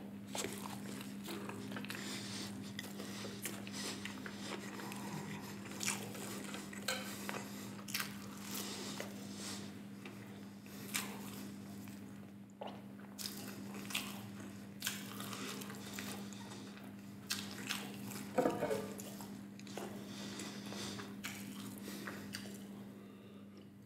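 Close-miked chewing of a Flamin' Hot Cheetos-crusted burger: repeated wet mouth smacks, clicks and soft crunches over a steady low hum. Near the end, sips from a glass of beer.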